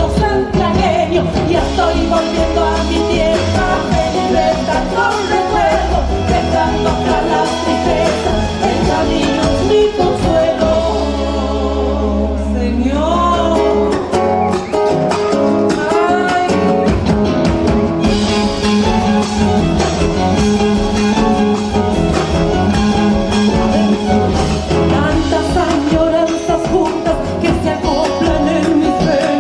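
A song playing: a singer over instrumental band accompaniment with a steady bass line.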